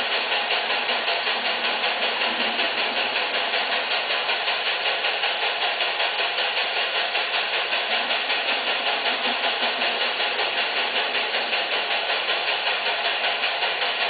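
Electronic steam-locomotive sound from an N scale 2-8-0 model train, chuffing in a quick, even rhythm matched to the train's running speed.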